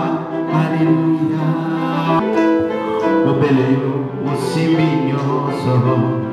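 Music: a song with singing over instruments, the voices holding long notes.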